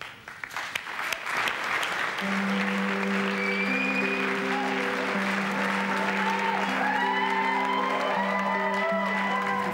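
Audience applauding. Background music comes in about two seconds in, with held low notes and a wavering melody over them from about halfway through.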